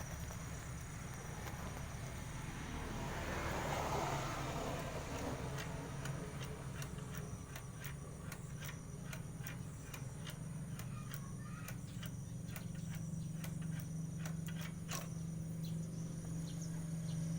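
Small generator-type engine on a custom-built machine running steadily at a constant speed, with irregular sharp clicks and ticks over it and a brief swell of hiss about three to five seconds in.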